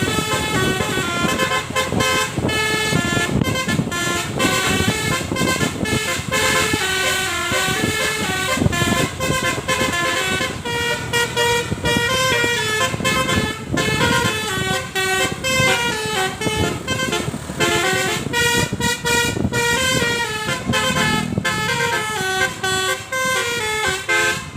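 Telolet horn on a tour bus, a set of musical air horns playing a quick tune of stepping notes, over and over without pause.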